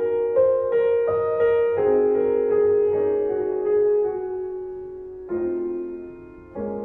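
Background piano music playing slow sustained notes and chords, with a new chord struck a little past the halfway point and again near the end.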